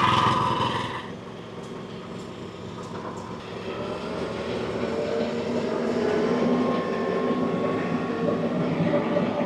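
Small Briggs & Stratton engine on a portable sawmill running. It is louder for about the first second, then drops suddenly to a lower, steady pitch and slowly picks up again over the next few seconds.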